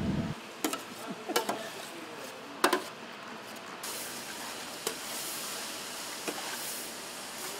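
Metal cookware clanking: a few sharp knocks of pots and utensils, one louder clank near the middle. Then from about four seconds in, a steady sizzling hiss of food cooking in a hot pan, with a couple more light knocks.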